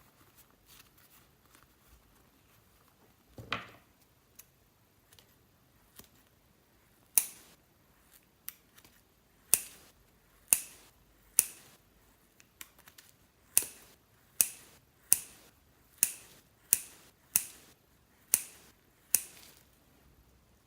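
Slime being pressed and poked, giving a series of sharp, crisp pops as trapped air bursts out. A few faint clicks and a short crackle come first, then the pops grow loud and regular, about one every two-thirds of a second.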